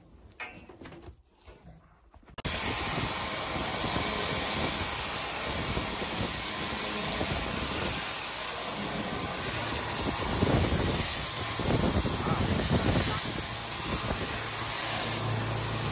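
Pressure washer spraying a steady, loud hiss of water against rusty steel tank walls. It starts suddenly about two seconds in, after a few faint clicks.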